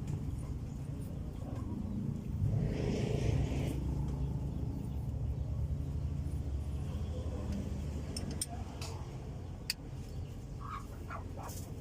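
A steady low mechanical rumble, like an engine running somewhere in the workshop, with a few light metal clicks and taps of hand tools on the valve gear during valve clearance adjustment in the last few seconds.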